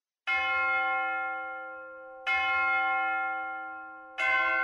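Church bell in a tower struck three times, about two seconds apart, each stroke ringing on with many overtones and fading slowly before the next.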